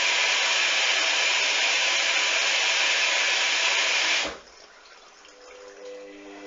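Hoover washing machine with water rushing through it, a loud steady hiss that cuts off suddenly about four seconds in. A few faint steady tones follow near the end.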